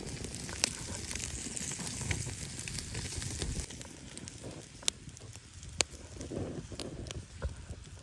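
Open wood fire crackling, with a few sharp pops, under a whole fish sizzling on a wire grill grate.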